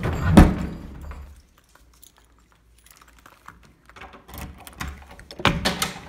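Knocks and clicks from a wooden door and its knob being handled, the loudest a sharp thunk about half a second in, then a cluster of clicks and knocks near the end.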